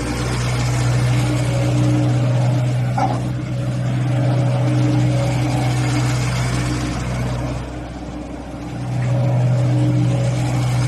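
Komatsu PC60-7 excavator's diesel engine running with a steady hum that swells and eases with load, dropping back for about a second near eight seconds in before rising again. A short squeak sounds about three seconds in.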